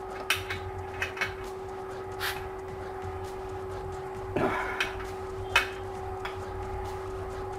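Hand tools clinking on a bolt as it is tightened on a motorcycle swingarm: a few separate sharp metal clicks from a spanner and Allen key, over a steady background hum.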